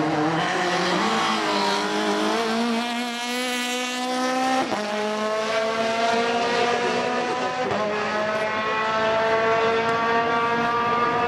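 Rally car engine pulling hard through the gears, its pitch climbing and dropping sharply at upshifts about four and a half and seven and a half seconds in.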